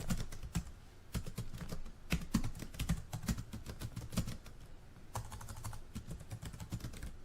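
A rapid, irregular run of small clicks and taps, several a second, that cuts off abruptly near the end.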